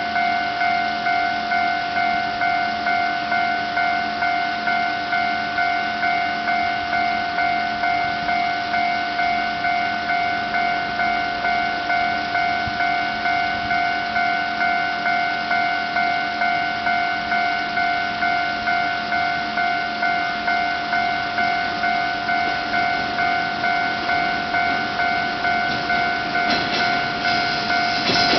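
Japanese level crossing alarm sounding its steady, evenly repeated electronic ding. Near the end the rumble of an approaching train rises under it.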